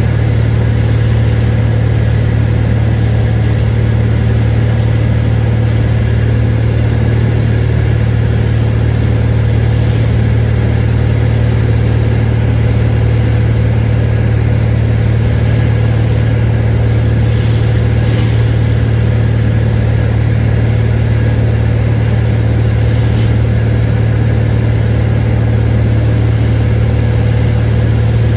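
Cessna 182 Skylane's piston engine and propeller running steadily in flight, heard from inside the cabin as an unchanging low drone.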